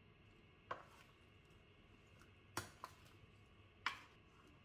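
Wooden spoons knocking against a metal roasting tray while tossing cut tomatoes: four sharp knocks, two of them close together.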